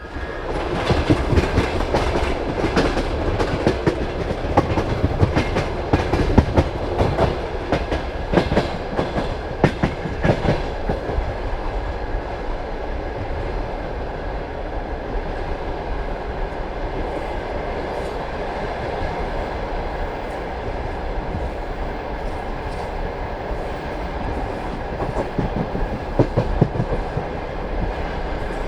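Passenger train carriage wheels clattering over rail joints above a steady running rumble. The knocks come thick for about the first ten seconds, then thin out to a steadier roll.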